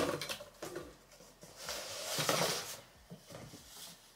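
Products and packaging being handled on a table: a sharp clack at the start, a few light knocks, and a rustle of packaging about two seconds in.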